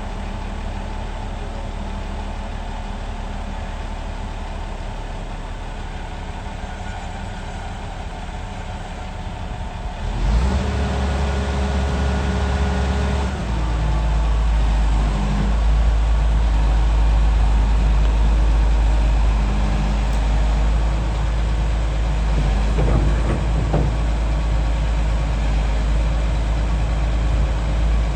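A heavy excavator's diesel engine running steadily. It steps up louder and deeper about ten seconds in and again a few seconds later, then holds, with a few short knocks near the end.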